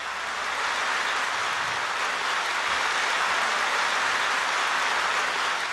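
Audience applauding; the clapping swells over the first second, then holds steady.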